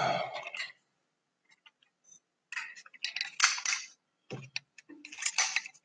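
Clicks, light metallic clinks and scraping handling noise as a hand-held digital luggage scale and fishing tackle are handled, in short clusters starting about two and a half seconds in.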